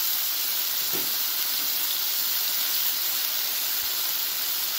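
Sauced pork butt steaks sizzling on a hot Blackstone flat-top griddle: a steady frying hiss of fat and barbecue sauce cooking on the steel.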